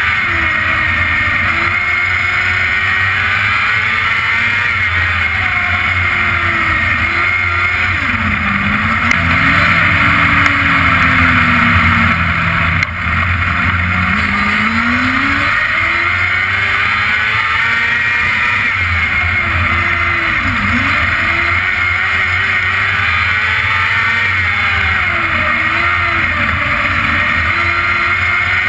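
Sprint car engine heard from onboard while racing on a dirt oval. It runs loud throughout, its pitch falling and then climbing again every few seconds, with a louder, lower stretch about ten seconds in.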